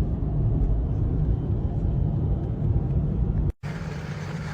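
Boat engine running with a heavy, uneven low rumble, cut off suddenly about three and a half seconds in, after which a steadier engine hum carries on.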